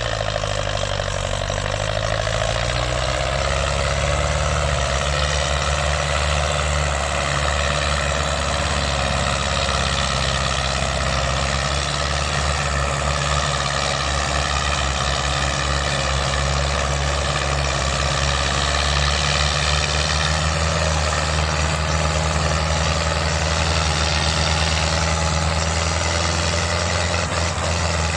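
Diesel engines of a Fiat 640 and a Belarus MTZ-50 tractor, running hard under heavy load while pulling a loaded sugarcane trolley stuck in mud. The revs climb over the first second or two, then hold steady.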